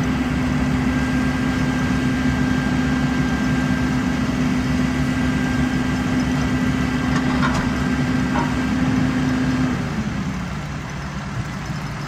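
An engine running at a steady speed, then dropping to a lower speed about ten seconds in.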